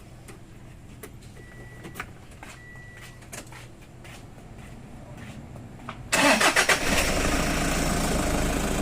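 Toyota Hiace engine cranked by its starter about six seconds in, catching at once and settling into a steady idle on the newly fitted battery. Before that, a few light clicks and two short high beeps.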